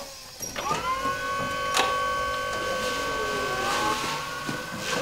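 Electric stand-up forklift's drive motor whining: it spins up about half a second in and settles into a steady high whine, with a sharp click about two seconds in.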